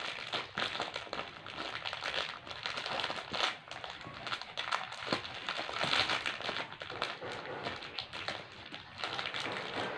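A plastic dog-treat wrapper crinkling without a break as a pug chews and paws at it, a dense run of small crinkles trying to get the package open.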